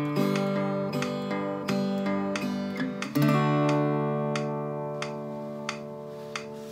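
Steel-string acoustic guitar playing a simple strummed chord pattern. A final chord is struck about three seconds in and left to ring, fading slowly, with a few faint ticks.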